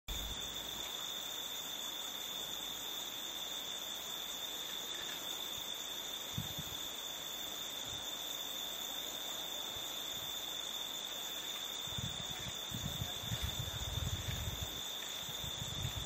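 Crickets chirping in a steady, continuous high trill, with a few low bumps in the last few seconds.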